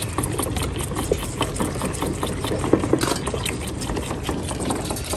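A row of goat kids sucking milk from bottle teats: a dense, irregular patter of wet clicks and smacks from many mouths at once, over a steady low hum.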